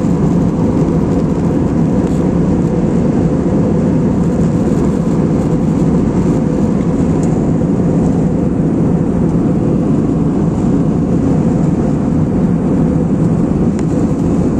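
Steady drone of an airliner cabin in flight: engine and airflow noise held at an even level, with a low steady hum.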